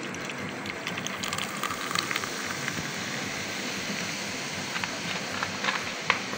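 Mint Sprite soda poured from a bottle into a glass of lemon juice, sugar and salt, fizzing as it foams up: a steady hiss with many tiny pops and crackles.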